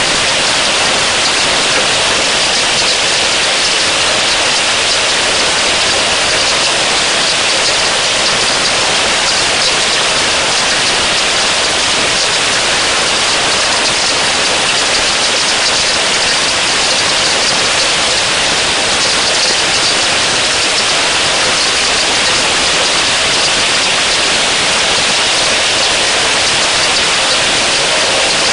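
Heavy rain falling steadily onto water and bush: an even, unbroken hiss.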